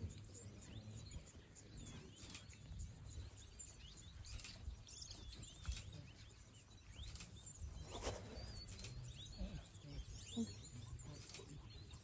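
Many small birds chirping and twittering with short, quick notes throughout, over a faint steady low rumble.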